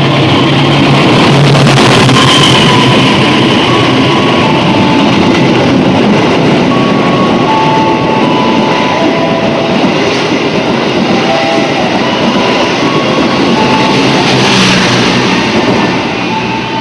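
Diesel-hauled passenger train passing through a station at speed without stopping: a loud, steady rush of wheels on rail and running carriages that eases off near the end.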